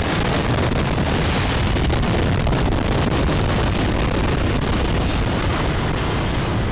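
Beirut port explosion (ammonium nitrate): a loud, unvarying wall of noise, heaviest in the deep lows, that cuts in suddenly and holds without fading.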